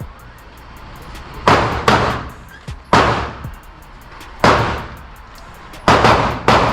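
AR-15 rifle firing single shots, six sharp cracks at uneven intervals, each followed by a short ringing echo. Background music with a steady beat runs underneath.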